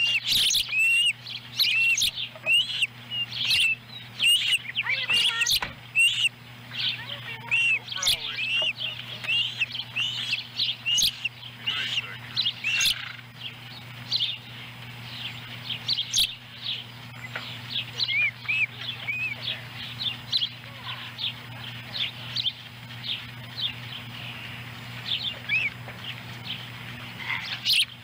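Juvenile ospreys chirping at the nest: rapid series of short, high, loud chirps, crowded together for the first half or so and thinning out later. A steady low electrical hum runs beneath them.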